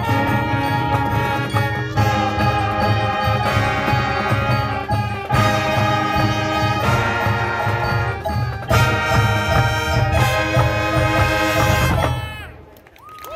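High school marching band playing: brass with drums and a front ensemble of mallet percussion, over a steady low pulse. About twelve seconds in, the last chord falls away in a downward slide and the music stops.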